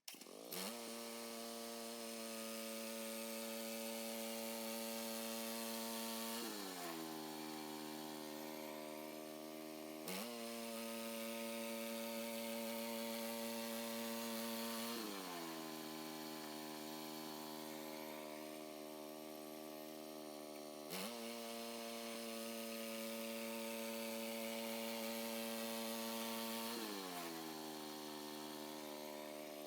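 Gas-engine portable bandsaw sawmill running through a cut in pine, a steady engine note whose pitch sags several times as the engine comes under load, then jumps abruptly back up.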